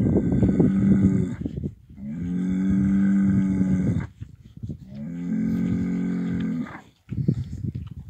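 Cattle mooing: three long, drawn-out calls, the first ending about a second in, followed by a few short knocks near the end.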